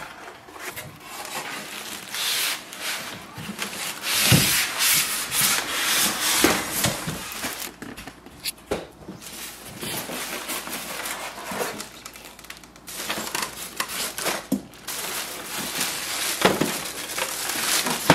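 Printer packing being handled: polystyrene foam end blocks and a plastic bag rubbing and crinkling against the printer and cardboard, with several short knocks.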